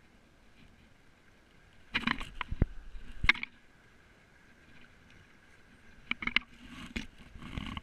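Kayak paddle strokes: the blades splashing into the sea in two spells, about two seconds in and again from about six seconds, with a few sharp knocks among the splashes.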